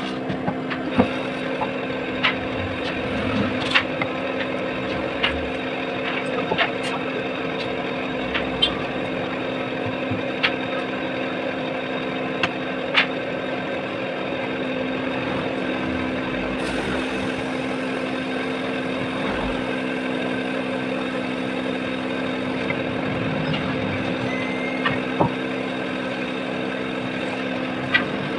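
Sharp knocks of a mallet striking a carving gouge as it cuts the bowl of a wooden spoon, coming every second or two, then stopping for about ten seconds in the middle and returning near the end. A steady engine-like hum runs underneath.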